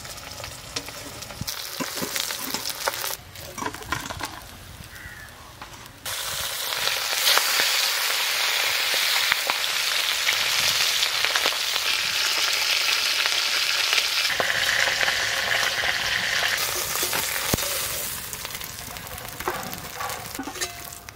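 Pieces of rohu fish sizzling as they fry in hot mustard oil in a wok, with a few clicks of a metal spatula against the pan as the browned pieces are lifted out. The sizzle grows loud about six seconds in and eases off near the end.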